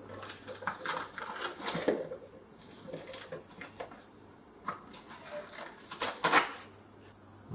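Scattered light clicks and knocks, with two sharper clicks about six seconds in, over a faint steady high-pitched whine.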